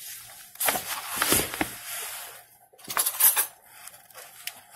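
Metal spoon stirring dry flour in a bowl, scraping and clinking against the bowl. It comes in two bunches of strokes, one about half a second to a second and a half in and a shorter one about three seconds in.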